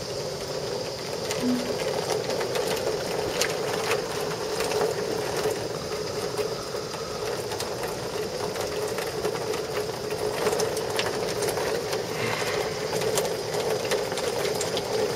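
Heavy rain pouring steadily, with many sharp ticks of drops striking hard surfaces close by.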